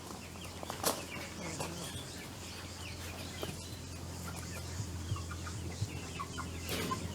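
Chickens clucking, scattered short calls over a steady low hum, with one sharp knock about a second in.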